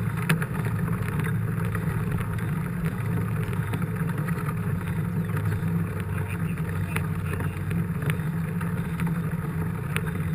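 Steady low rumble of wind and tyre noise picked up by a GoPro on a moving mountain bike, with scattered small clicks and knocks from the bike.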